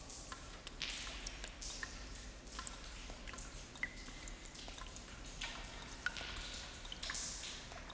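Water drops falling at irregular intervals in an echoing room, several drops ringing on as short pitched pings, with a few brief soft hissing splashes between them.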